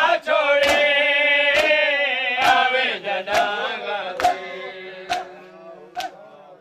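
A group of men chanting a mourning chant in unison during matam, with in-time slaps of hands on bare chests about once a second. The chanting and slaps fade toward the end.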